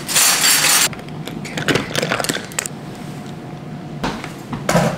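A kitchen drawer sliding open with a short scrape, then utensils clinking and rattling inside it, and a short sharp knock near the end.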